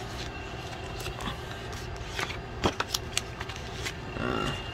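Paper pages of a paperback owner's manual being turned and handled, rustling with a few sharp crackles about two to three seconds in, over a steady low hum.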